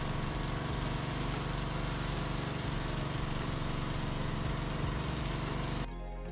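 A Honda GCV190 single-cylinder four-stroke engine runs steadily, driving a gas pressure washer, with the hiss of the water jet hitting concrete. Near the end the engine sound cuts off abruptly and music takes over.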